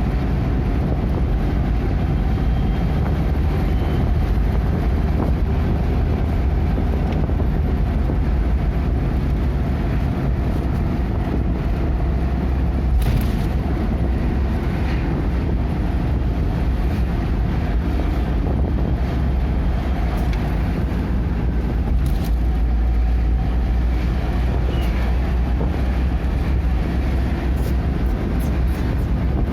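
Steady low rumble of a moving vehicle: engine and road noise, unbroken, with a few faint ticks.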